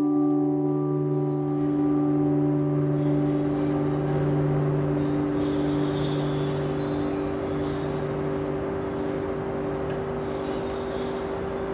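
Electric guitar through a small amplifier, a held drone-like chord ringing on and slowly dying away. The lowest note fades out about three quarters through while a higher tone keeps sounding over the amplifier's hiss.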